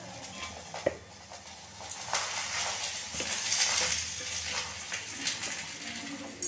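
Paratha frying in oil on a hot tawa: a steady sizzle that swells about two seconds in and holds, after a single light knock near the start.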